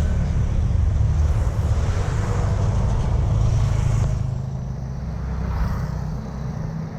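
Road traffic: a vehicle's engine and tyre rumble going past, heavier for the first four seconds and then easing off.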